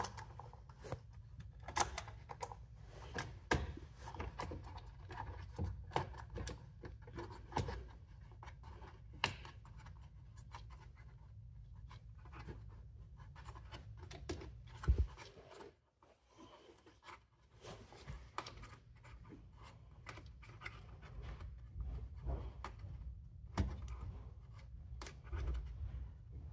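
Small metal parts being handled: scattered light clicks, taps and scrapes as a headlight adjustment screw, washer and spring are fitted by hand into a UTV's headlight assembly, over a low steady hum.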